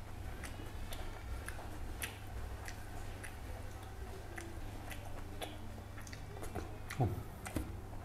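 Close-up eating sounds of a man chewing rice and fish eaten by hand: scattered soft mouth clicks and smacks over a steady low hum. A brief low falling sound comes about seven seconds in.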